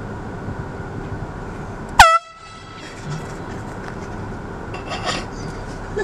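A single short, very loud blast of an air horn about two seconds in, its pitch bending up at the onset and cut off after a fraction of a second, fired as a prank during a golfer's swing.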